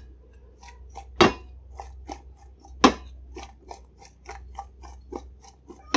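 Chunks of salted jackfruit being tossed and turned by hand in a metal bowl: a run of light clicks and taps against the bowl, with two louder knocks, about a second in and near three seconds.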